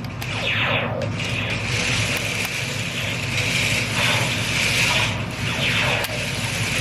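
Small electric drive motors and gearboxes of Laser Battle Hunters remote-control toy tanks running with a steady grinding whir. Two falling zap-like tones are heard, one about half a second in and one near the end.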